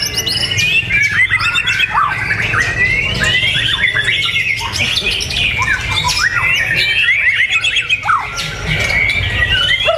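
A songbird singing continuously: a fast, varied stream of whistles, quick rising and falling sweeps and chattering notes.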